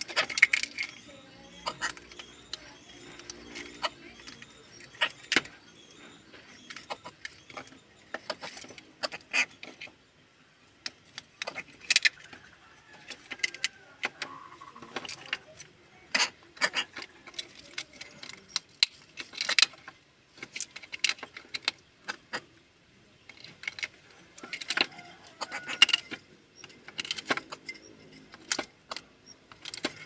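Greater coucal pecking at snails, its beak knocking against the shells, with shells clinking against each other as it moves among them: irregular sharp clicks and taps with short pauses between.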